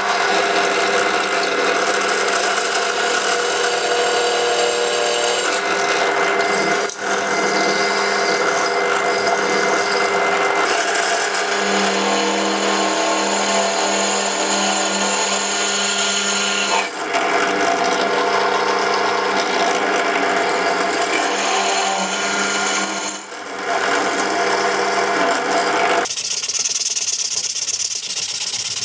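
A benchtop drill press runs with a steady motor hum as its gold-coloured bit drills through the O1 tool steel knife tang; the sound breaks off briefly three times. About 26 seconds in, it gives way to the hiss of a hand-held sanding block rubbed on the steel blade.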